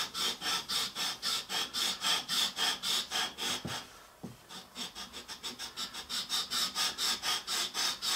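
Wooden model rubbed back and forth on sandpaper mounted to an MDF board, even sanding strokes about four a second, with a short pause a little past halfway. It is the top of the main rotor base being sanded down flush.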